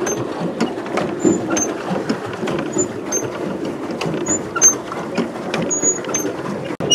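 A pedal boat under way: its paddle wheel churns the water with a steady rough splashing. Irregular clicks and short high squeaks run all the way through it.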